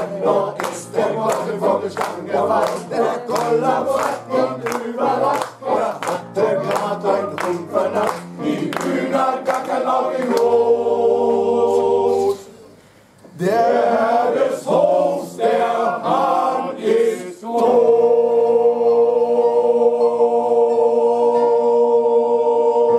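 Men's choir singing over steady rhythmic hand clapping, then holding long chords: a short one about ten seconds in and a final one of about five seconds that cuts off at the end.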